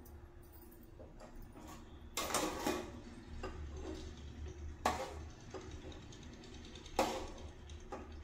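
A metal spoon clinking and scraping against a steel kadhai and a small bowl as gravy is served out, with three sharper clinks standing out about two, five and seven seconds in. A low steady hum runs underneath.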